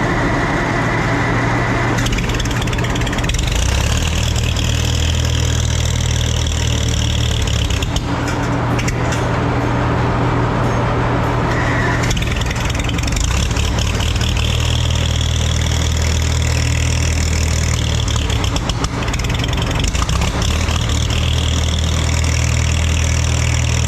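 Antique tractor engine running steadily, with its note shifting a few times.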